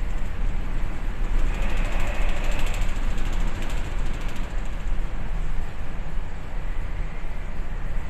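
Steady low rumble and hum of a bulk carrier's engine and hull vibration heard on board. A rushing noise swells between about two and four seconds in as heavy seas break along the hull.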